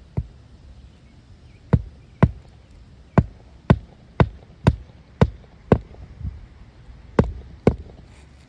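Hand hammer driving roofing nails into a shingle: about a dozen sharp strikes, mostly in pairs about half a second apart.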